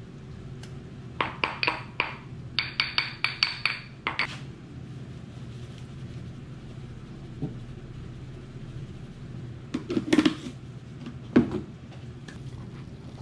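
Stone pestle knocking against a granite mortar tipped over a steel pot, tapping paste out. It gives about a dozen sharp, ringing clinks in quick succession over about three seconds, then a few heavier knocks near the end, over a steady low hum.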